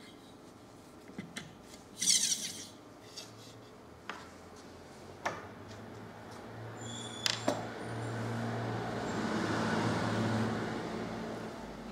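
Handling noises from a pancake electric motor being put together. About two seconds in a short metallic rattle sounds as the copper printed-circuit rotor disc is seated, with scattered light clicks around it. Later a rustling with a low hum swells and fades as the motor's leads are clipped to a multimeter.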